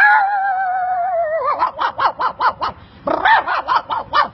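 A small dog yipping. It opens with one long wavering howl of about a second and a half, then gives rapid high yips, about five a second.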